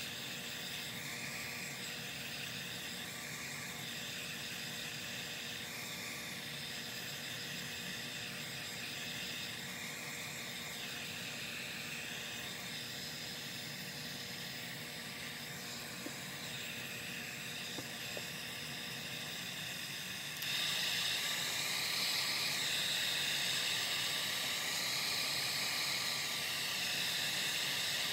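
Craft heat gun blowing a steady hiss of hot air, drying wet ink on the pages of a small handmade book. It gets louder about two-thirds of the way through and stays louder.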